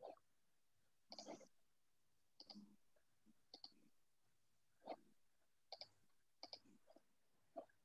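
Faint, irregular clicking of a computer mouse, a dozen or so clicks, some in quick pairs, over near-silent room tone.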